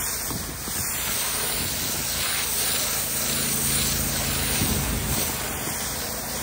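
Pressure washer wand blasting a high-pressure water jet onto brick steps: a steady hiss of spray, with a low steady hum underneath.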